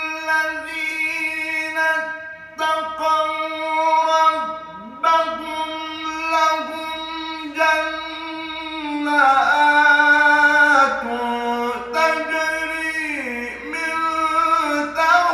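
Solo male voice in melodic Arabic religious recitation, drawing out long held notes with ornamented pitch turns. It climbs to a loud, high passage about two-thirds of the way through, then slides back down.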